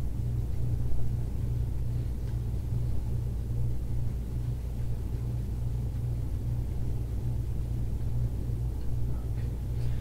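Steady low hum with a regular faint pulsing in it, and a small knock about a second in.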